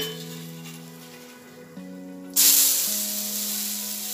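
Background music with sustained notes. About halfway through, a loud sizzle starts suddenly and keeps on: the atta uttapam frying on the hot tawa once it has been turned over with a metal spatula.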